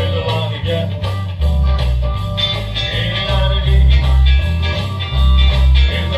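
Background song with guitar over a steady, rhythmic bass line.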